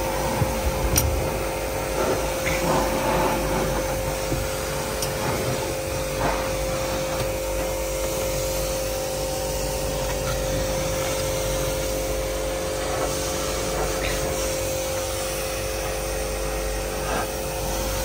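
A motor-driven machine running steadily with a constant whine, with a few light knocks and rubbing sounds over it.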